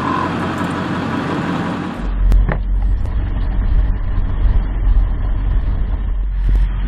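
An even outdoor hiss, then about two seconds in it switches to a vehicle engine idling, a steady low rumble heard from inside the cab, with a single click shortly after.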